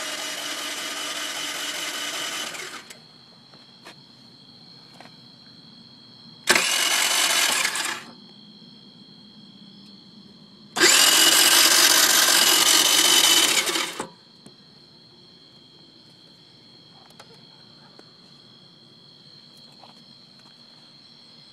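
Peace 50cc moped's electric starter cranking in three steady whirring attempts, the first and last about three seconds long and the middle one shorter, without the engine catching. The moped will not start.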